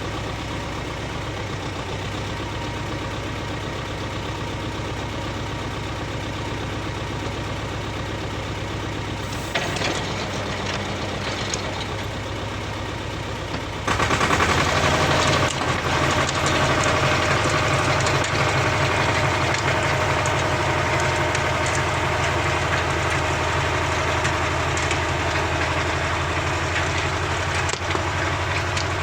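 Walk-behind rotary tiller's small engine running steadily, then about halfway through suddenly getting louder and higher in pitch and holding there.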